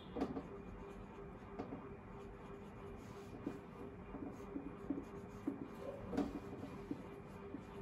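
Marker pen writing on a whiteboard: short, irregular strokes and taps of the tip as words are written out.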